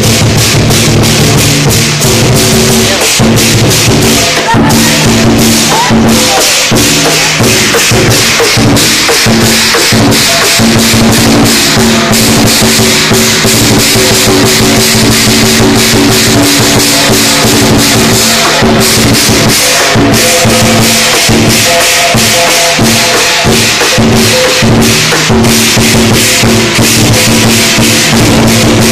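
Chinese lion dance percussion played close by and very loud: a big drum beaten in a fast, driving rhythm with clashing cymbals ringing over it, without a break.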